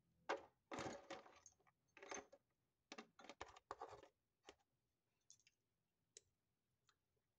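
Scraping and clicking of rice being scooped out of a food container: a quick run of short scrapes over the first four seconds, then a few faint clicks.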